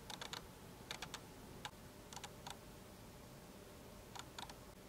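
Faint, sharp clicks in quick groups of two or three, a few times over a low steady hiss.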